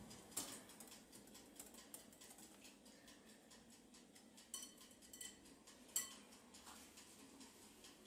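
Wire balloon whisk beating a liquid custard mixture in a glass bowl: faint, quick light clicks of the wires against the glass, with a few sharper ringing taps about four and a half and six seconds in.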